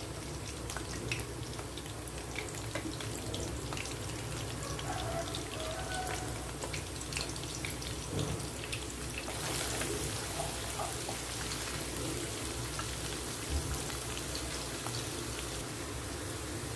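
Onions sizzling and crackling in hot oil in a pan. The hiss grows a little louder about halfway through.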